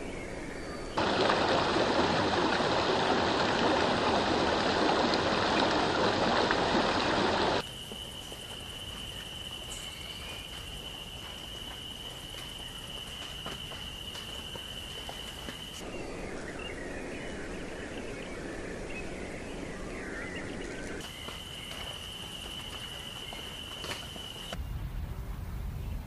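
Edited run of outdoor ambience. A loud, steady rushing noise lasts about six seconds and cuts off. Quieter background follows, with a steady high-pitched whine that stops and later returns briefly, faint scattered bird chirps in between, and a low rumble near the end.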